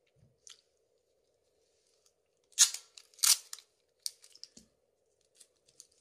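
Handling noises: two loud, short crackling scrapes about halfway through, followed by a scatter of light clicks.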